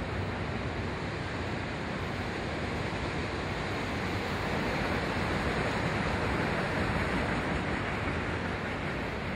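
Train rolling through a station: a steady rushing noise of wheels on rail, swelling a little about halfway through.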